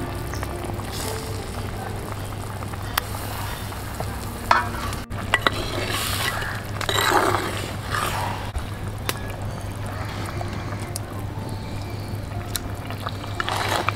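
Fish curry bubbling in a clay pot, with a metal spoon stirring it and scraping the pot. A few sharp clinks come around the middle, and the scraping is loudest just after.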